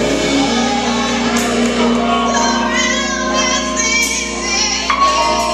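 Youth choir singing with organ, keyboard and drum kit backing; held organ notes under the voices, with a few cymbal crashes.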